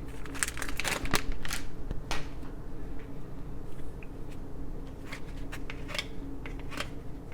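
A hockey card pack being torn open and its cards handled: a crinkling wrapper and card stock rustling and clicking in scattered sharp bursts, thickest in the first two seconds.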